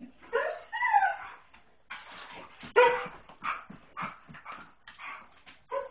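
A greyhound whining. Long notes slide up and down in pitch, then come shorter notes in quick succession, about three a second, with one sharper note near the end.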